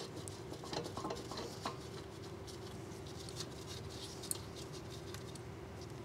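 Faint metal clicks and light scraping of a disc brake caliper bracket being shifted up and down against the steering knuckle to line up its mounting bolt, with a sharper tick about four seconds in, over a steady faint hum.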